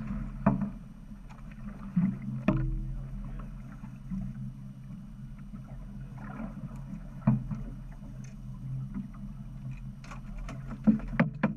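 Fishing boat's engine idling with a steady low hum, broken by scattered sharp knocks and clicks, several in quick succession near the end.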